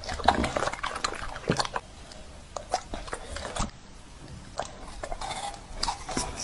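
Dog chewing and smacking on food fed from a fork, a run of irregular sharp clicks.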